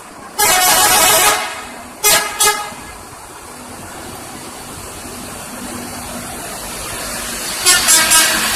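A bus 'telolet' horn, a multi-tone musical air horn, sounds one long blast of about a second, then two quick toots, then a quick run of short toots near the end. A steady engine hum runs beneath and slowly grows louder.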